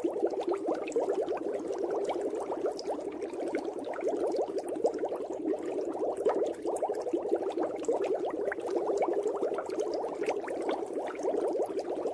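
Water bubbling steadily, a dense stream of small pops with no break.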